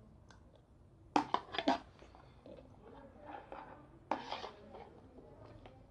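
A spoon clinking and scraping against a dish of strawberries: a quick cluster of clicks about a second in and another about four seconds in, with faint rustling between.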